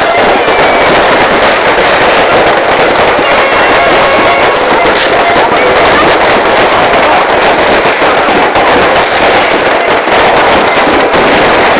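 Fireworks and firecrackers going off in a dense, continuous crackle of rapid bangs, loud and without a break.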